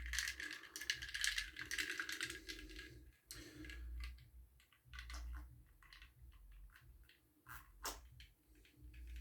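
A chopstick stirring ice cubes in a mug of rum and Coke: faint, quick clicks and clinks of ice against the mug, thick for the first three seconds or so, then thinning out to scattered clicks.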